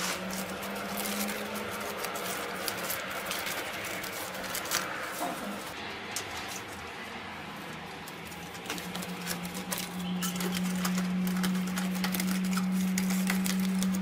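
Aluminium foil tape and a flexible corrugated aluminium flue duct being handled and pressed into place, giving irregular crinkling and rustling crackles. A steady low hum runs underneath and gets louder in the second half.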